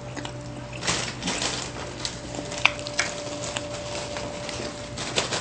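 Close-up eating by hand: chewing and mouth sounds with scattered sharp clicks from handling food and dishes, over a faint steady hum.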